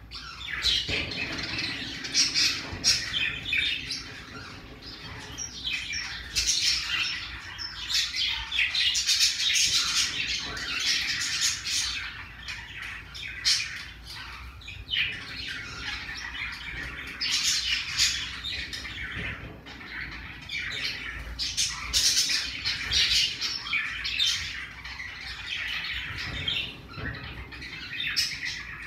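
Pacific parrotlet calling: a busy run of short, high squawks and chirps, easing briefly about four seconds in and again near twenty seconds.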